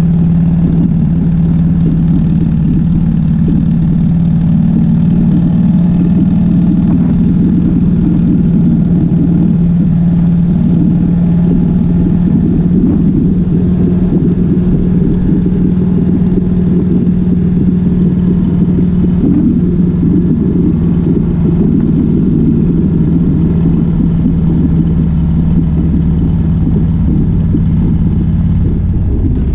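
2005 Harley-Davidson Softail Springer Classic's Twin Cam 88B V-twin engine and exhaust running steadily under way, with a constant engine note. The note drops away about a second before the end.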